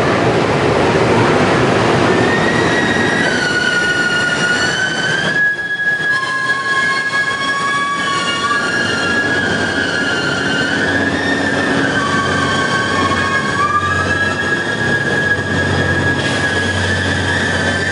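Cassiopeia sleeper express, an EF510 electric locomotive with E26 series double-deck coaches, pulling out of a station. A heavy rumble as the locomotive passes in the first couple of seconds, then the coaches' wheels squealing in several wavering high tones as the cars roll by.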